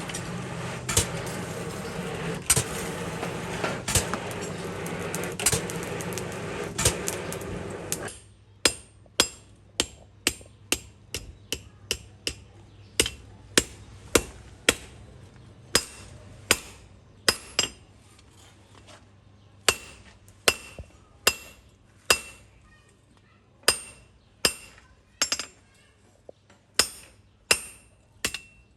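Hammer blows on metal with a bright ring. For the first eight seconds a steady machine runs under strikes spaced about a second and a half apart. Then the machine stops and the strikes continue alone, one or two a second.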